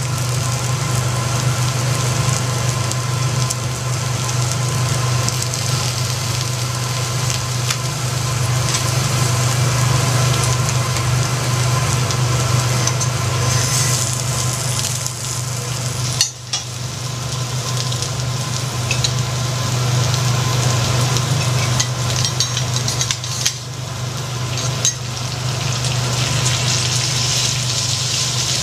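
Kuruma prawns sizzling on a hot teppanyaki steel griddle, with scattered clicks and scrapes of a steel knife and fork on the plate, over a steady low hum.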